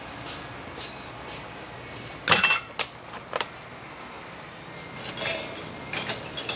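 Metal clinks and clanks: one loud ringing clank a little over two seconds in, two lighter clinks soon after, and a patter of small clinks near the end, over a steady background noise.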